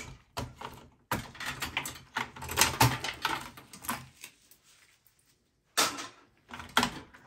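SATA cables being unplugged and pulled out of an HP EliteDesk 800 G1 desktop's case: a run of plastic connector clicks, rattles and cable rustling for about four seconds, then a short pause and two sharper knocks near the end.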